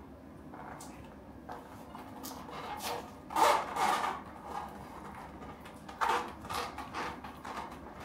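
Fingers rubbing and pressing tubular gluing tape, still under its clear plastic backing film, along a carbon Zipp 808 rim: soft irregular rubbing and crinkling, loudest about three and a half seconds in and again at about six seconds.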